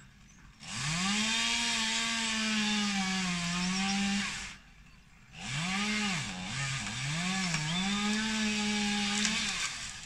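Two-stroke chainsaw at full throttle in two runs of about four seconds each, with a short pause between them. The second run opens with three quick blips of the throttle before the saw holds at high revs.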